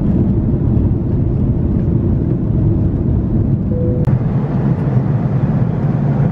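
Inside the cabin of a Swiss jet airliner climbing after takeoff: the steady low drone of the engines and rushing air. A single sharp click comes about four seconds in, after which the same steady cabin drone continues.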